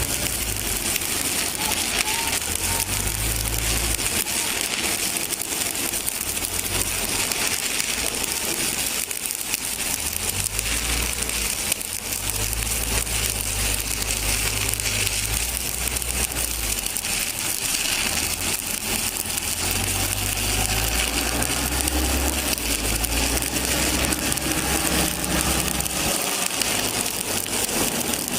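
Stick (SMAW) welding arc crackling and sizzling steadily as a bead is run on a plate, over a low uneven drone.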